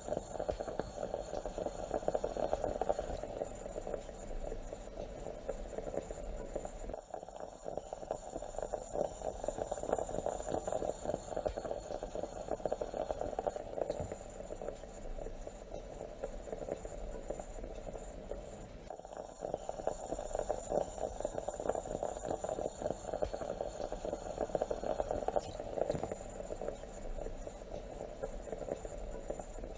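Stovetop moka pot bubbling and sputtering steadily as the coffee boils up into the top chamber, with brief dips about seven seconds in and again near nineteen seconds.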